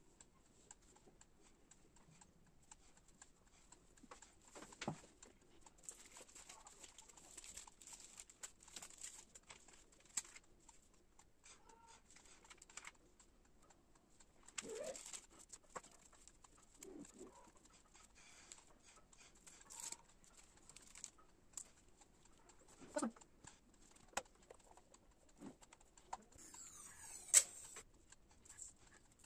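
Faint handling of paper and a glue stick: scattered rustles, light taps and small clicks as paper cutouts are pressed onto a journal page, with one sharp click near the end. A few short pitched sounds that rise and fall stand out now and then.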